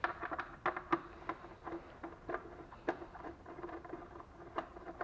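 Irregular light clicking and tapping of a hand tool and bit turning out the Torx bolts on a Lada Priora's timing belt cover, with small metal and plastic knocks from the work.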